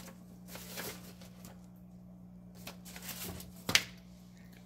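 Printed paper instruction sheets rustling as they are handled and leafed through, with a sharp tap about three-quarters of the way in. A steady low hum runs underneath.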